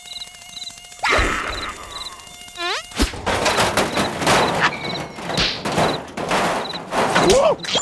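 Cartoon sound effects: a thin steady mosquito buzz over regular high cricket-like chirps. About three seconds in comes a sharp smack, then a noisy scuffle mixed with squeaky, sliding character cries until it cuts off near the end.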